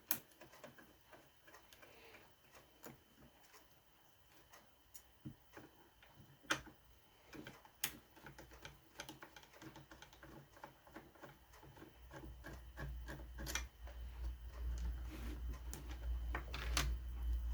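Scattered small clicks and taps of a cordless circular saw's parts being handled during disassembly, with a few sharper knocks. A low rumble comes in about two-thirds of the way through and grows.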